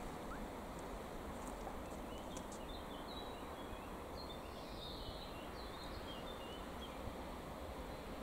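Faint, steady rumble of a double-deck TGV high-speed train approaching in the distance. A small bird chirps in quick high notes through the middle few seconds.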